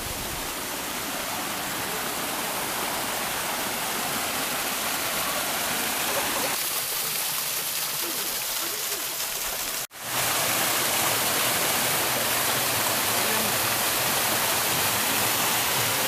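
Small waterfall splashing down a rock face, a steady rushing of water. About ten seconds in it breaks off for an instant and comes back a little louder, as water rushing through a narrow stone channel.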